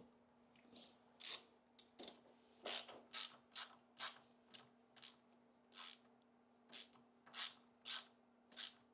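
Ratchet wrench clicking in short strokes on the engine's fasteners: about fifteen sharp, irregularly spaced clicks, roughly two a second.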